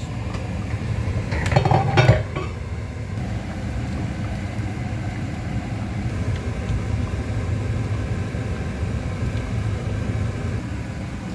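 A metal spoon clinks and knocks against a cooking pot a few times about one and a half to two seconds in, over a steady low rumble.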